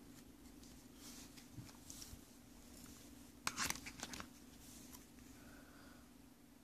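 Small handling sounds of unboxing: scattered light clicks and rustles, with the loudest cluster of clicks about three and a half seconds in, over a steady low hum.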